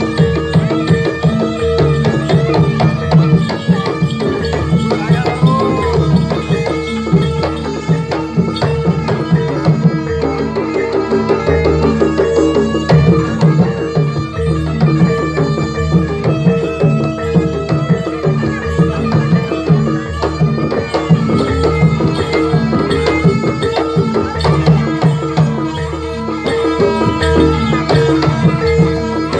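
Live jaranan (kuda lumping) gamelan ensemble playing, with kendang hand drums driving a steady rhythm over sustained metallic tones.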